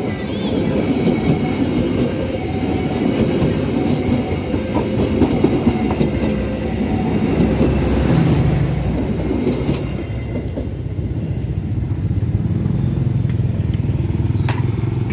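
Pangrango passenger train's coaches rolling past close by, wheels clattering over the rail joints. The clatter eases about ten seconds in and a low rumble remains.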